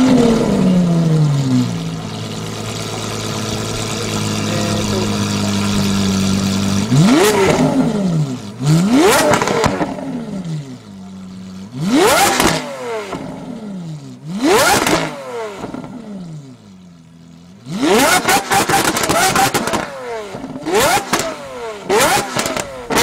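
Lamborghini Aventador's V12 engine: a high flare that drops away within about a second and a half to a steady idle, then from about seven seconds in, a series of sharp throttle blips, about eight, each rising fast and falling back to idle.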